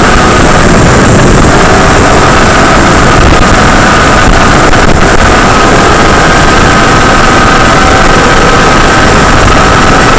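FPV racing quadcopter's 3000KV brushless motors and propellers whining loudly over a steady hiss, their pitch drifting a little up and down with throttle.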